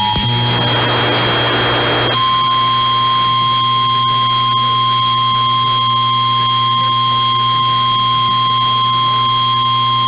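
Emergency alert tones from a weather-radio broadcast. The two-tone EAS attention signal cuts off just after the start, then about two seconds of radio static follow. After that the single 1050 Hz NOAA Weather Radio warning alarm tone sounds steadily, the signal that announces a warning such as a flash flood warning. A constant low hum and a faint high whine run underneath.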